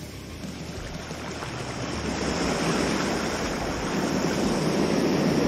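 Ocean surf washing in, the noise swelling steadily louder over the few seconds.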